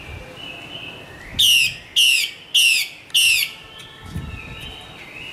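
Female Chinese hwamei calling: four loud falling notes in an even series, about 0.6 s apart, starting about a second and a half in.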